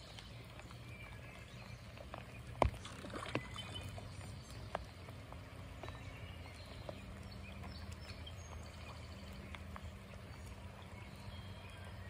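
Faint outdoor ambience of light rain and creek water, a steady low wash broken by scattered light taps, with one sharper tap about two and a half seconds in.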